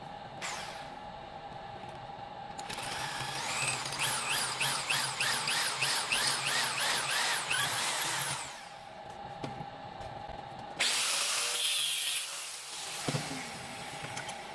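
Electric drill boring into a small steel part held in a bench vise, the bit squealing with a pitch that rises and falls about two and a half times a second for around five seconds. About eleven seconds in comes a separate loud hiss lasting about a second and a half.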